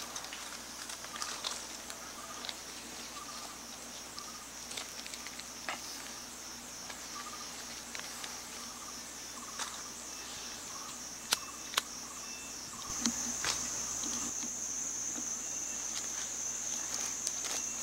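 Chorus of forest insects: a steady high-pitched buzz with a fast pulse, growing louder about thirteen seconds in. Two sharp clicks a little past the middle, about half a second apart.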